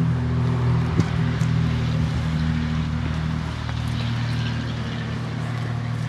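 1942 Ford GPW jeep's four-cylinder flathead engine idling steadily, with a single sharp click about a second in.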